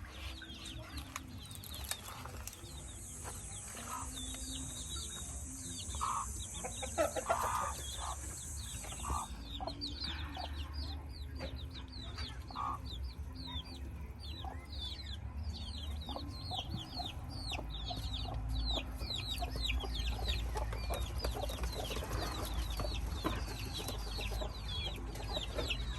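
A brood of chicks peeping constantly, many short falling peeps overlapping, while a mother hen gives low clucks now and then in the first half. A steady high hiss runs for several seconds near the start.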